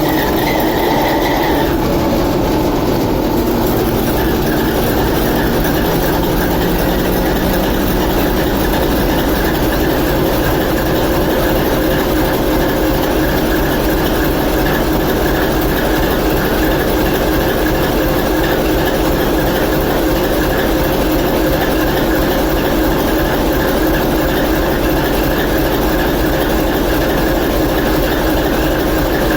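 TEP70 diesel locomotive's V16 diesel engine running loudly and steadily. Its pitch settles in the first couple of seconds after a rise in engine speed, then holds even.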